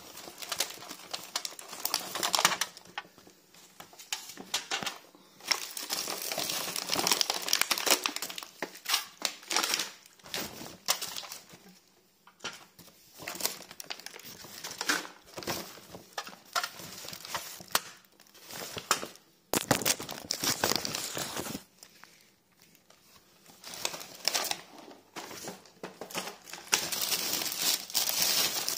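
Plastic shopping bags and cellophane packaging rustling and crinkling as groceries are handled and unpacked, in irregular stretches with a few short pauses.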